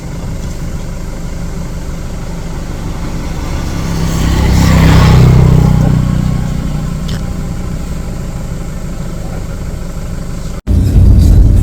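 Steady low motor-vehicle engine and road rumble. It swells loud for a couple of seconds around the middle, as if a vehicle passes close by, then drops out for an instant near the end and comes back as a louder low rumble.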